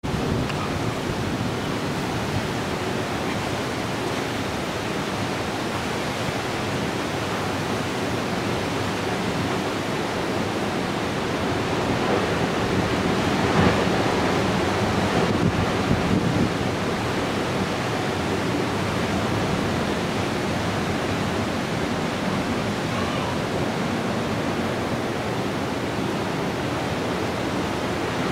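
Heavy storm surf from an approaching hurricane, breaking in a steady roar mixed with wind, swelling louder about halfway through.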